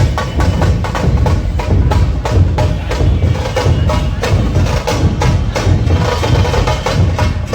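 Loud, fast percussion music: dense, sharp stick strokes over deep drum beats with no pause.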